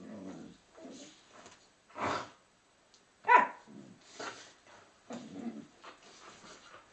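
Two dogs play-fighting ("bitey face"), giving low growls and short barks; the loudest is a sharp bark about three seconds in.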